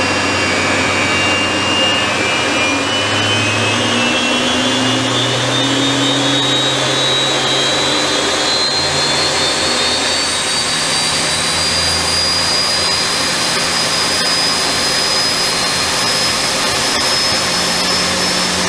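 Rolls-Royce Viper 535 turbojet of a BAC Strikemaster running on a ground run, heard from the cockpit: a loud steady jet roar with a high compressor whine that rises steadily in pitch as the engine spools up.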